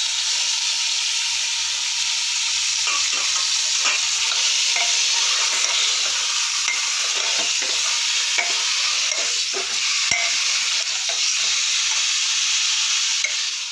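Raw mutton pieces sizzling steadily in hot oil and browned onion paste in an aluminium pressure cooker, the start of frying the meat. A metal spoon scrapes and knocks against the cooker as the meat is stirred.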